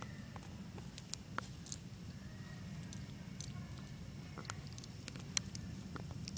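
Puppy chewing and tugging at its leash: scattered small clicks and clinks, the sharpest about a second in and about five seconds in, over a steady low hum.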